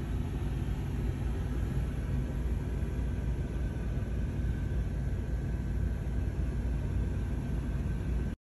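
Steady low rumble inside a Freightliner semi truck's cab, its diesel engine idling; it cuts off suddenly near the end.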